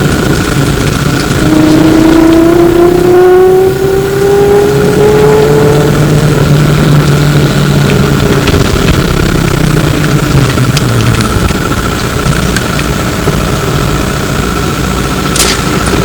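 On board a Flyer E902 trolleybus: the electric traction motor whines, rising in pitch as the bus accelerates, over road rumble and a steady high tone. A few sharp clicks come near the end.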